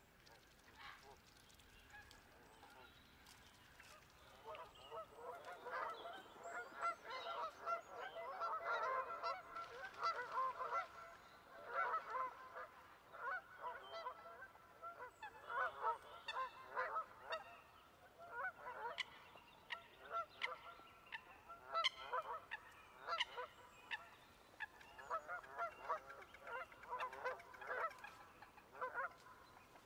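A flock of geese honking, many short calls overlapping, starting about four seconds in and going on in bursts.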